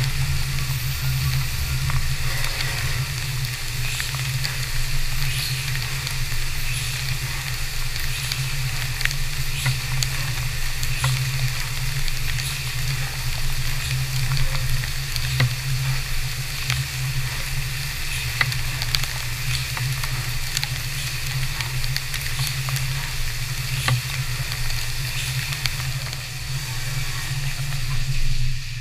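CNC vertical mill machining aluminium bars under flood coolant: a steady low hum from the running machine with a constant hiss of coolant spray and scattered light ticks.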